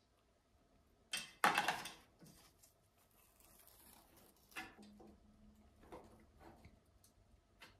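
Handling noises from a COB LED strip and its cables: a loud rustle about a second in, then softer rustling and a few light knocks as the strip is laid around the lamp's shade.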